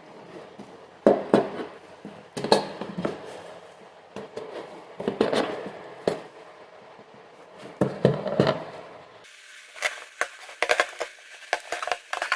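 Cardboard boxes being handled and worked by hand: irregular knocks, scrapes and rustles in bunches every second or two. About nine seconds in, the background hiss changes and a quick run of sharp clicks follows.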